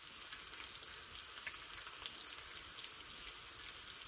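Strips of bacon frying in a Lodge cast iron wok: a steady sizzle with many small, scattered pops and crackles.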